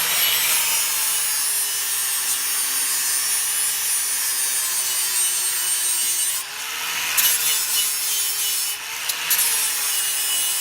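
Electric grinder with a buffer wheel running against steel, scouring rust off the truck's bumper to bare metal for a welder's ground clamp. A steady motor whine under loud scraping, sagging briefly twice as the wheel is pressed harder.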